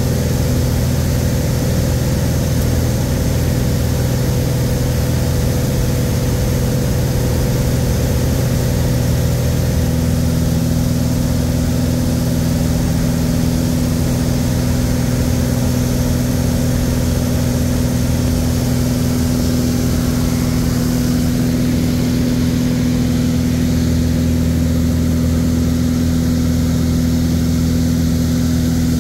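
Light aircraft's piston engine and propeller droning steadily, heard from inside the cockpit. One low tone in the drone grows stronger about ten seconds in.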